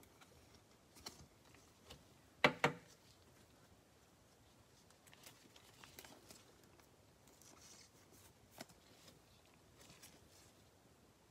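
Soft rustles and light clicks of trading cards being handled, with a louder double tap about two and a half seconds in.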